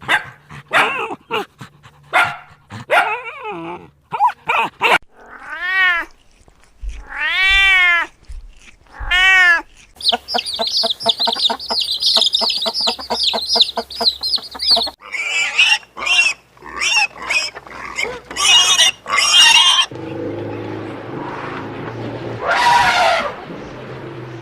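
A run of different domestic and farm animal calls one after another, changing every few seconds, among them three long rising-and-falling calls a few seconds in that fit cat meows.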